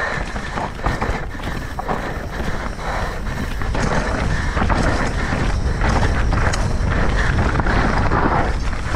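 Mountain bike riding fast down a rocky dirt trail: wind buffeting the microphone over tyre noise and the clatter of the bike over rough ground, growing louder about four seconds in.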